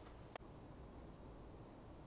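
Near silence: room tone with a faint low hum, and one faint click about a third of a second in.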